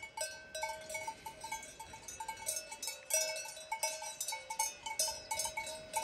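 Cowbells on grazing cows clanking irregularly, several per second. At least two bells of different pitch ring over one another.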